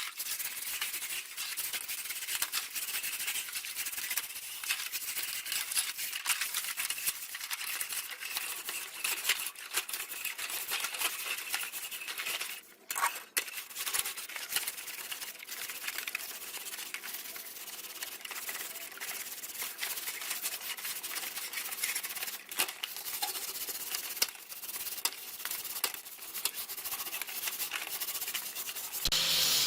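Continuous irregular scraping and rubbing by hand, many quick short strokes of abrasion on a rusty fan part, with a brief pause about halfway through.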